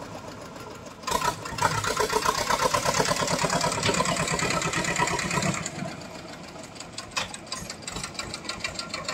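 Sonalika DI 730 II tractor's diesel engine chugging with an even beat. About a second in it grows louder and works harder for several seconds, then eases back to a lower level near six seconds in.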